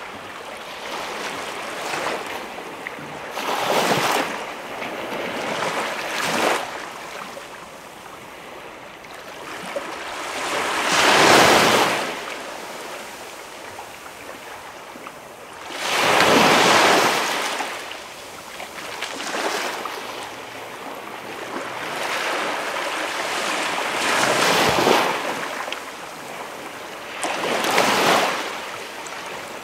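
Small waves breaking and washing up the shore of a calm beach, each surge swelling and falling away every few seconds, with the strongest wash about a third of the way in and again past the middle.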